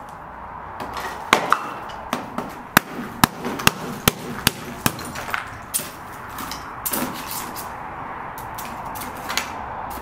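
White ceramic planter being chipped and broken apart with a metal tool: a series of sharp, irregular clinks and knocks as the tool strikes the pot.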